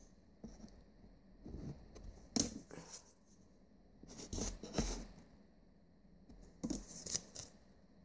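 Paper Pokémon TCG code cards being handled close to the microphone: a few short rustles and clicks scattered through, with quiet stretches between.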